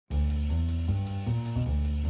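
Instrumental closing-credits theme music starting abruptly: a low bass line stepping from note to note under quick, regular drum-kit cymbal strokes, about five a second.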